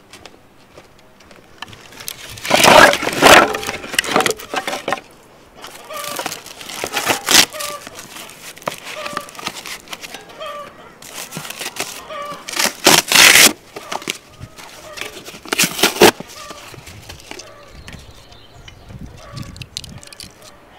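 Hens clucking in short calls about once a second, with four loud bursts of cardboard being torn and rustled, the longest and loudest near the start.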